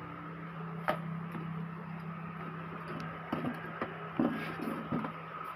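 Hands unplugging a printer's power cord and handling the cables: a few scattered light knocks and clicks over a steady low hum.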